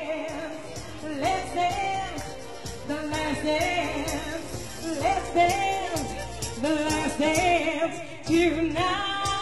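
Live band music: a woman singing a wavering melody over keyboards, bass and a regular drum beat. A long held chord sets in near the end.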